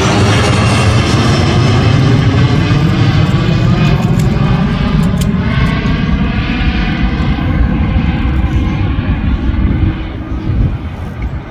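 Twin rear-engined regional jet passing overhead and climbing away: a loud, steady jet engine roar that fades near the end.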